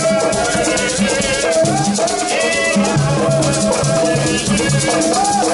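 Live band playing upbeat music, with a shaker keeping a steady fast rhythm over a melody and bass line.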